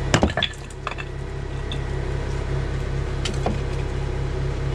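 A concrete block thrown down onto a boulder hits with a loud crack just after the start, to break the block up, followed by a few lighter knocks of concrete on stone. A skid steer's diesel engine idles steadily underneath with a low pulsing hum.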